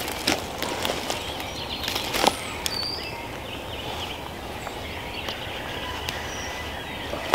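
Outdoor ambience: birds giving short high chirps now and then over a steady background hiss, with a few sharp crunches or knocks in the first two seconds or so.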